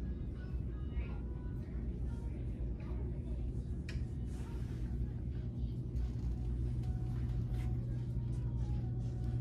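Steady low hum and rumble, with faint distant voices and a few light clicks.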